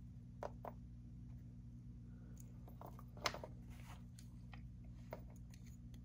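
A few faint clicks and taps of jewelry pliers and a metal jump ring being handled, the loudest about three seconds in, over a steady low hum.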